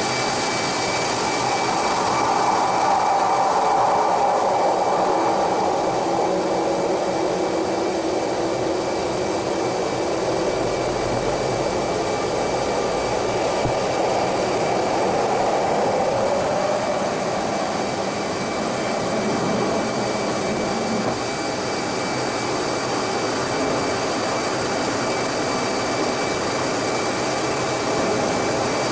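Twin jet engines and rushing air of an F-18 Hornet heard from inside the cockpit: a loud, steady noise with two thin, steady high tones above it. The noise swells twice as the jet runs along the runway, then goes into a steep climb near the end.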